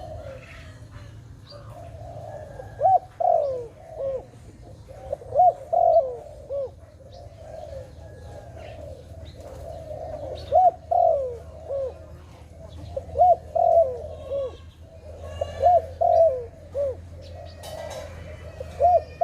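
Zebra dove (Malay dove) cooing its staccato song: about six phrases of short rising-and-falling notes, a few seconds apart.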